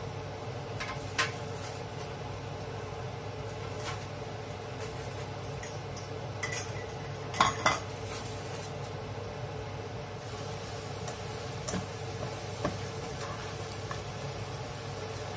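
Chicken wings simmering in sauce in a non-stick pan, a steady sizzle over a steady hum, broken by a few sharp clicks of a metal slotted spatula against the pan, two of them close together about halfway through.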